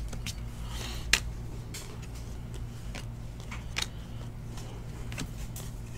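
A stack of glossy foil trading cards being flipped through by hand: cards sliding and ticking against each other, with a sharp snap about a second in and another near four seconds. A steady low hum runs underneath.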